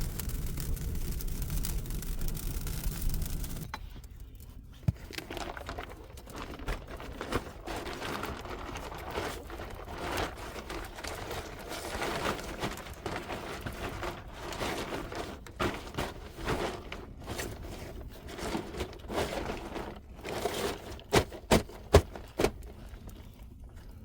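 A steady rushing noise that cuts off abruptly a few seconds in. It gives way to an irregular run of close scraping and crinkling handling sounds with scattered sharp clicks, three of the loudest coming in quick succession near the end.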